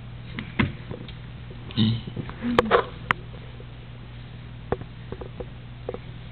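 A baby being spoon-fed: scattered small clicks of the spoon and her mouth as it goes in, with a brief voice sound about two seconds in, over a steady low hum.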